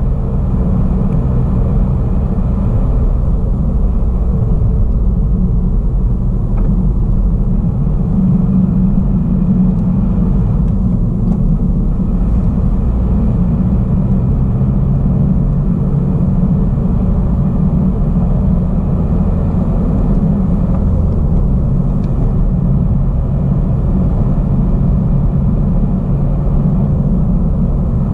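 Car driving at steady speed, heard from inside the cabin: a steady low rumble of tyres on asphalt and engine.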